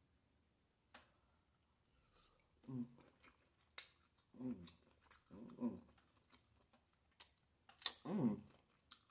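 Close-up eating sounds from a mouthful of steamed shrimp: sharp wet mouth clicks and lip smacks, with four short hummed 'mm' sounds that fall in pitch, the last one the loudest.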